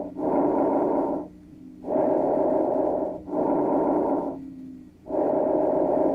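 Recorded bronchovesicular breath sounds, as heard through a stethoscope over the chest: a breathy rushing in and out, with inspiration and expiration of about equal length and a short gap between them. One breath ends, a full breath follows, and the next begins about five seconds in.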